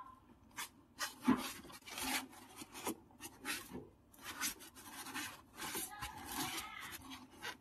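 A washing machine's water level sensor hose being twisted and worked onto its fitting by hand: irregular rubbing and scraping.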